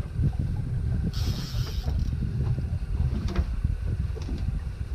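Fishing reel being cranked in, a rapid mechanical ticking, as a hooked salmon is brought to the net, over a constant low rumble. A brief hiss comes about a second in.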